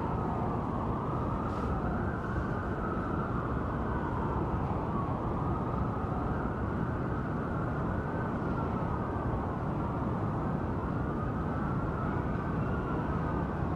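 Several sirens wailing at once, their pitches slowly rising and falling and overlapping, over a steady muffled rumble of noise.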